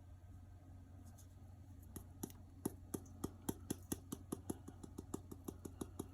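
Chili pepper seasoning being dispensed from its container over raw chicken pieces: a quick run of small, sharp ticks that starts about a second in and quickens to around five or six a second.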